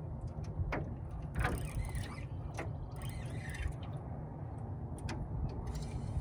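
Steady low wind rumble on the microphone, with a few short, separate clicks and ticks from a spinning reel being wound in while a hooked fish is played.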